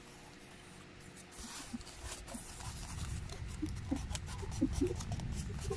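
Corrugated cardboard being worked by hand, scraping and crackling with many small clicks. It starts faint and grows louder after about a second and a half.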